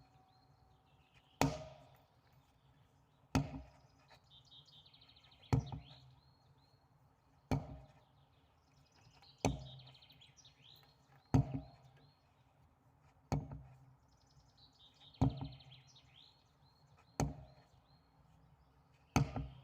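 Sledgehammer striking a tyre in a steady rhythm: ten heavy blows about two seconds apart. Birds chirp faintly between the blows.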